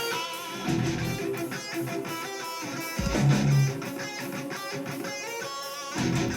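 Guitar-driven band music with drums playing.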